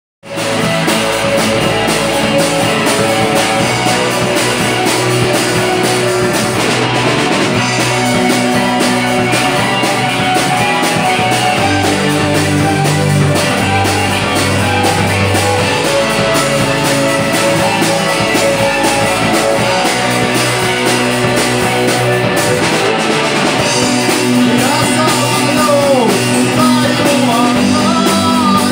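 Live rock band playing an instrumental passage on electric guitar, keyboard and drum kit.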